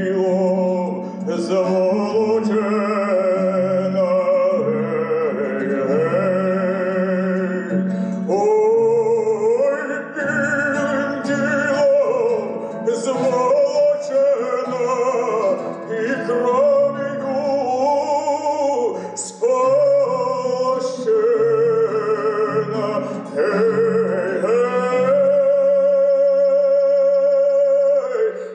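A man singing with strong vibrato, accompanying himself on a plucked kobza. He holds one long note near the end.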